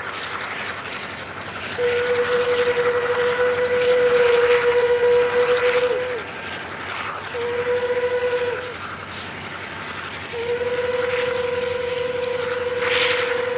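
Horn of a railroad rotary snowplow train sounding three blasts: a long one about two seconds in, a short one, and another long one starting about ten seconds in. Each dips slightly in pitch as it cuts off. Under the blasts is a steady rushing noise from the plow at work.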